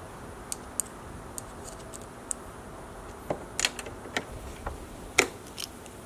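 Small scattered clicks and taps of a Phillips screwdriver working screws into the plastic high-mount third brake light housing as it is screwed back into place. A few faint ticks at first, then a cluster of sharper clicks in the second half, the loudest just after five seconds in.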